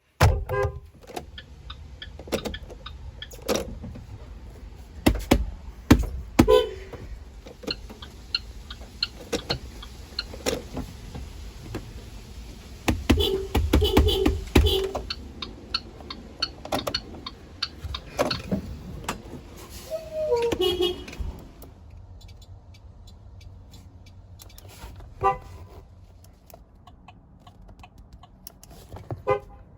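School bus horn giving several short toots, the loudest group about halfway through, among repeated clicks and knocks.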